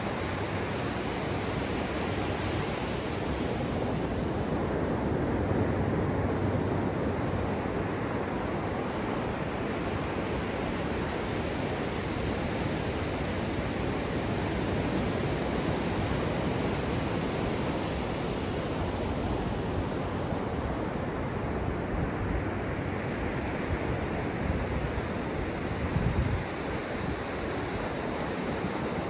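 Ocean surf breaking and washing up a sandy beach close by, a steady rush that swells and eases with each wave. A brief low thump near the end.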